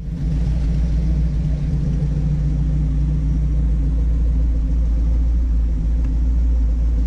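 The truck's rebuilt 360 cubic-inch V8 idling steadily, a low, even engine sound that cuts in suddenly at the start.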